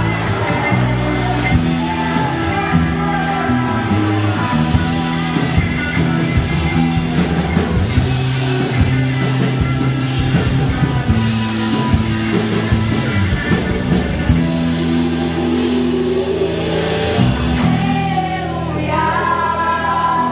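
A band playing a Brazilian gospel praise song with singing over a steady bass line and drums.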